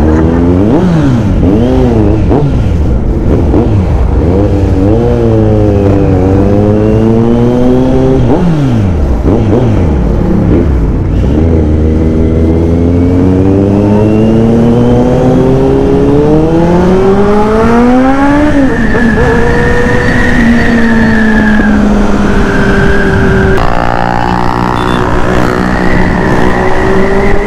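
Big motorcycle engine pulling away and accelerating hard up through the gears. It rises in pitch, drops back at each shift, and climbs again several times, then settles into a steady high-revving cruise near the end.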